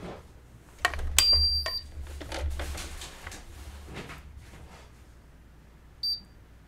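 An electronic beep lasting under a second about a second in, surrounded by clicks and clatter, then a second, shorter beep at the same pitch near the end.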